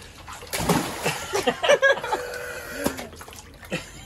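Water splashing and sloshing in a small inflatable paddling pool as a child moves about in it, a run of splashes starting about half a second in.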